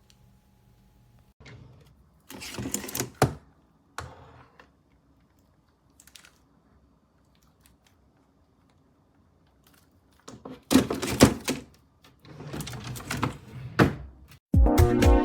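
Handling noises: clicks, knocks and rustling in two bursts, as of objects being handled and set down. Music with a steady beat starts near the end.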